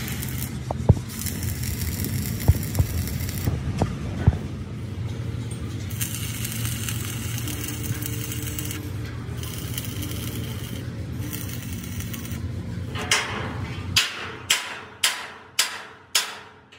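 Workshop noise: a steady low hum with scattered knocks and stretches of hiss. Near the end, about six sharp strikes come in quick succession, each fading quickly, as the hum cuts out.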